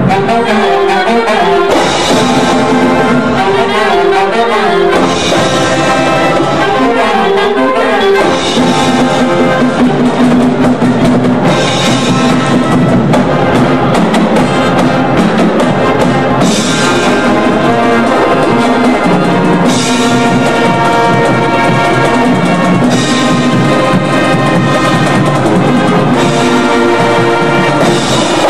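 Marching band's brass section playing a loud, sustained passage, with percussion underneath.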